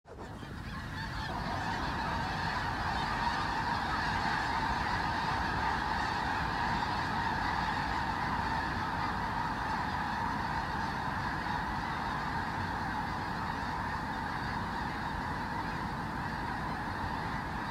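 A huge flock of snow geese calling together: a dense, continuous din of honking that fades in over the first second or two and then holds steady.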